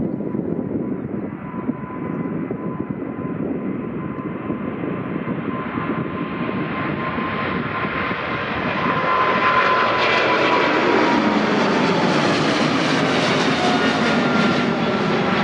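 Widebody jet airliner passing close by, its engine noise growing louder and brighter, with a steady whine whose pitch drops as it goes past about ten seconds in.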